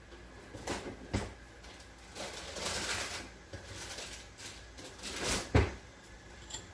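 Kitchen handling sounds: packaging rustling in two stretches, with a few light knocks and a sharper knock on the counter a little over five seconds in.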